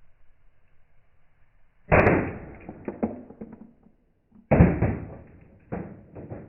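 A plastic remote control car controller being smashed: a hard hit about two seconds in and another about two and a half seconds later, each followed by rattling clatter, then a smaller hit near the end.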